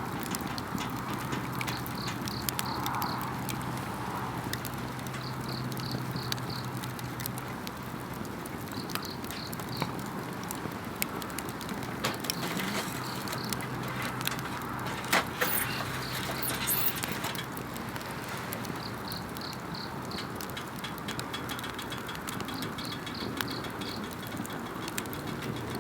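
Wood campfire crackling with scattered sharp pops, while insects in the surrounding grass sing a short pulsing high trill that repeats every three to four seconds.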